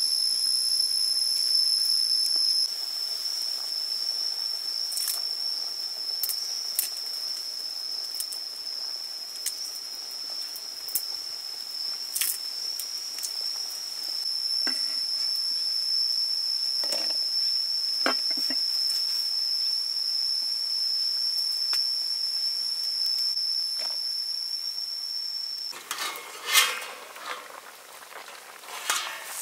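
A steady, high-pitched insect drone from the surrounding forest, with a few light taps and knocks of handled utensils. About four seconds before the end the drone stops, and a wok of snails in coconut water is heard bubbling at a rolling boil, with clatter from its glass lid being lifted.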